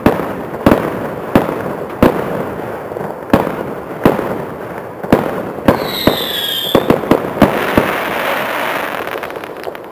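Fireworks going off: a series of sharp bangs about one every 0.7 seconds, a falling whistle a little past halfway, then a dense crackling hiss near the end.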